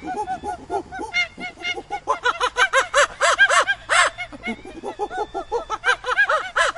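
A monkey's rapid chattering calls: short hoots that rise and fall in pitch, several a second, in quick runs that grow loudest in the middle, thin out briefly and pick up again near the end.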